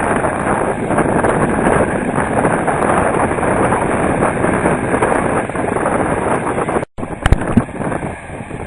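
Wind buffeting the microphone over the rush of surf, a dense steady noise. About seven seconds in it drops out for a moment, then comes back with a couple of sharp knocks.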